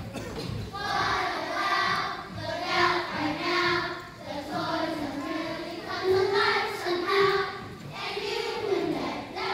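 A group of young children singing together in unison, holding sustained notes.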